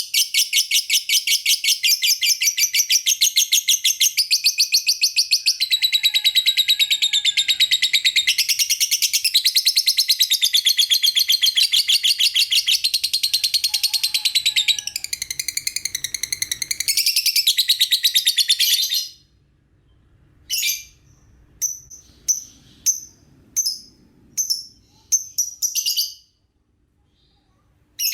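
Lovebird chirping in a long, very fast, high-pitched trill of rapid-fire chirps. After about nineteen seconds it breaks into separate short chirps roughly a second apart, then pauses before one more chirp at the end.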